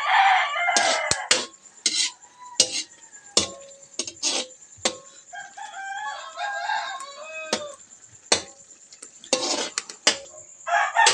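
A rooster crowing three times, rough calls of one to two seconds each at the start, in the middle and near the end. Between the calls a metal ladle clinks and scrapes against a wok.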